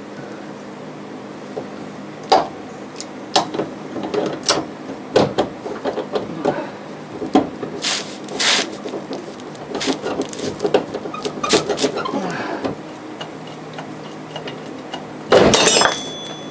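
Irregular metal knocks, scrapes and clanks from tools working on the car's steel underbody parts while loosening a stubborn bolt. Near the end comes one loud metallic clang that rings on briefly.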